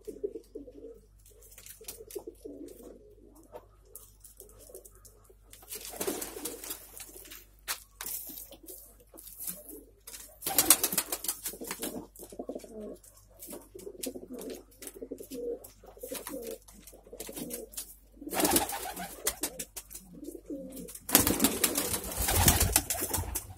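Domestic pigeons cooing repeatedly, low warbling calls that come in short runs throughout, broken four times by louder bursts of noise.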